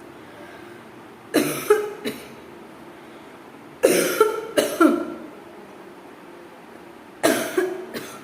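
A person coughing in three short fits, each of two to four harsh coughs, spaced about three seconds apart. The coughs are deliberate, performed for a coughing challenge.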